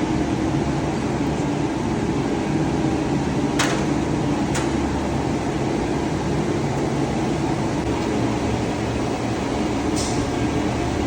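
Steady drone of boiler room machinery, with a few short sharp clicks about a third of the way in and another near the end, from screwdriver work on the alarm fixture.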